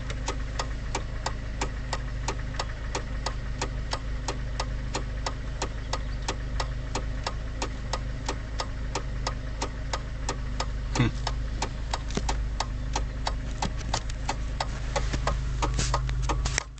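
A car engine idling with a steady low hum, and a regular ticking at about four ticks a second running over it. A brief falling squeak sounds about eleven seconds in.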